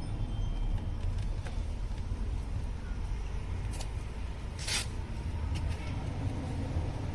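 Jaguar XF door card being prised off: a few light plastic clicks and one short, loud rasping crack a little past halfway as a trim clip lets go, over a steady low rumble.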